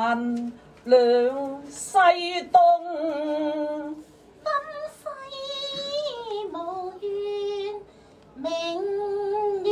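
Cantonese opera duet singing: drawn-out phrases with long pitch slides, a lower voice first and then a high female voice, with short breaks between phrases.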